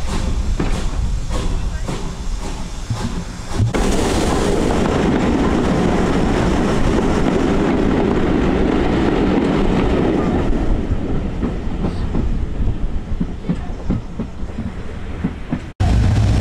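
Steam-hauled train, behind BR Standard Class 2 locomotive 78022, running along the track, heard from a carriage window with regular clicking about twice a second. About four seconds in, the train enters a tunnel and the sound suddenly becomes louder and fuller. It eases off again later, before cutting off sharply near the end.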